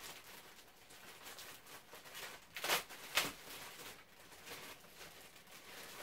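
Clear plastic packaging bag crinkling and rustling as it is handled, with two louder crackles a little under three seconds in and about half a second apart.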